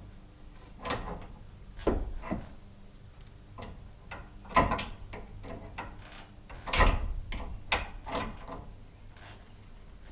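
Irregular metallic clicks and knocks of hand tools and clamp being worked on garage door hardware, about ten in all, the loudest about halfway and two-thirds through.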